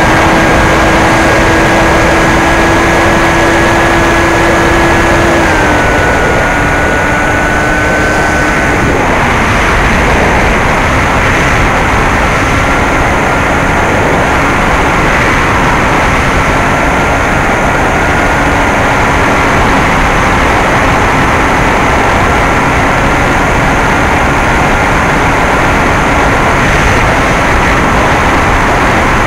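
Brushless electric motor and 9x6 propeller of a Bixler 2 RC plane running in flight, heard from the plane itself: a steady motor whine under heavy wind rush. The whine steps down in pitch twice, about five and nine seconds in, as the motor slows, then holds steady.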